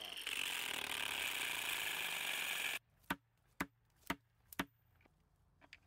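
Angle grinder's cut-off disc cutting through the thick steel wall of an old pressurized water tank: a steady, loud grinding that stops abruptly almost three seconds in. It is followed by a few sharp knocks about half a second apart.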